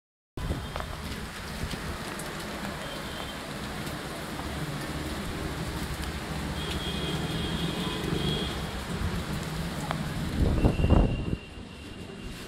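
Heavy rain pouring steadily, a close, even hiss of rainfall. A few louder knocks come about ten and a half seconds in, then the rain drops away abruptly.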